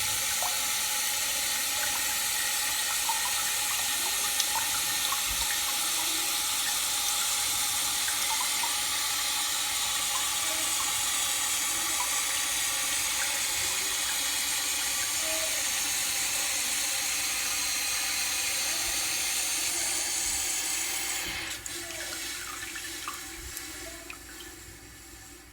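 Toilet tank refilling: a steady hiss of water running through the fill valve that cuts off about 21 seconds in, leaving a few faint wavering tones near the end.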